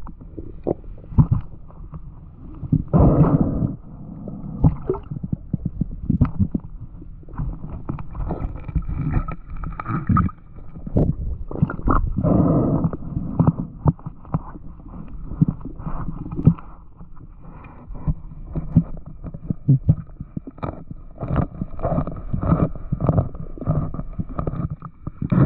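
Underwater sound heard through an action camera's waterproof housing: muffled water movement and low rumbling, with frequent sharp knocks and clicks as a fish skewered on a spear shaft is handled.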